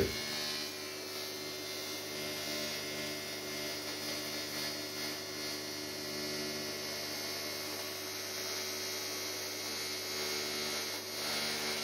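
Steady electrical hum, several even tones over a faint hiss, unchanging throughout.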